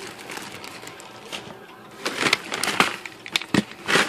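Plastic zip bags crinkling and rustling in irregular strokes as a hand rummages through them, louder and busier in the second half.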